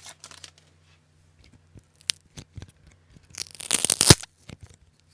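A hockey card pack wrapper being torn open by hand: a few small crinkles and clicks, then one louder tear about three and a half seconds in, lasting under a second.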